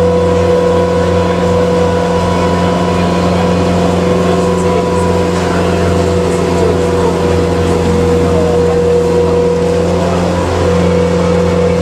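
Water taxi's engine running steadily while under way, a loud unchanging drone with a steady hum, heard from inside the boat's covered passenger cabin.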